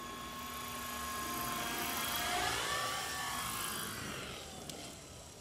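Gaui Hurricane 425 radio-controlled helicopter coming in on an autorotation landing: its rotor blades whoosh, swelling to a peak about halfway through as it flares, then fading as it settles. A whining tone slides down and back up under the whoosh, and there is a small tick near the end.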